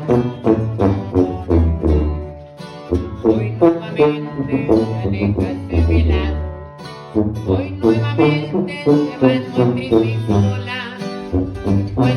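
Instrumental music: fast plucked string notes over a bass line with a steady beat.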